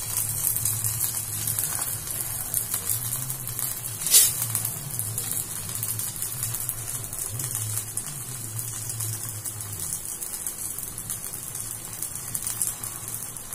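Adai batter frying in oil on a hot pan: a steady, fine crackling sizzle over a low hum, with one sharp click about four seconds in.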